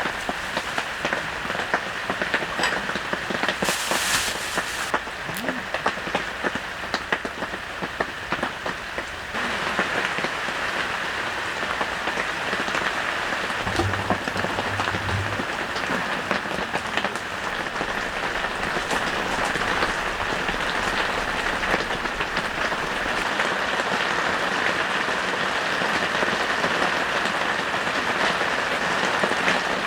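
Heavy rain pattering steadily on a tent shelter, a dense spray of drop impacts, getting louder from about nine seconds in. A short hiss about four seconds in.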